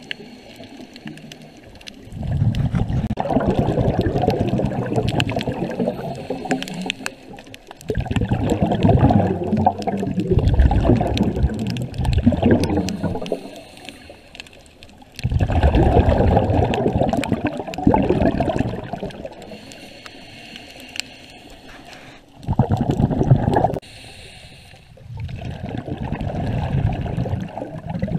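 A scuba diver's exhaled breath bubbling out of the regulator underwater, heard as a loud gurgling rush of bubbles about five times, each lasting a few seconds, with quieter pauses between breaths.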